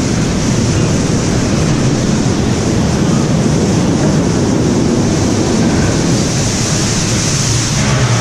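Steady rushing and rumbling as the Calico Mine Ride's ore-car train rolls on its track through a cavern scene with falling water.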